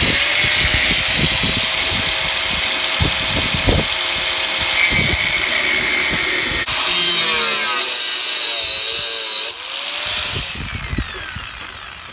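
Angle grinder with a cutting disc cutting through the steel of a Land Rover chassis, a steady loud hiss over the motor's tone. The sound changes about seven seconds in, then the grinder comes off the metal and winds down near the end.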